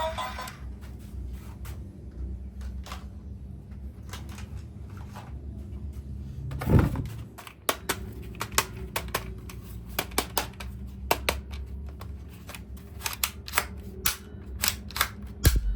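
Hard plastic toys or packaging being handled: irregular sharp clicks and knocks, with one louder thump about seven seconds in.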